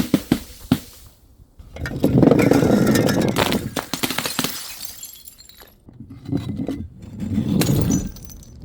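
Glass bottles breaking: a few sharp knocks, then a long crash of shattering glass with tinkling shards starting about two seconds in, and a second crash near the end.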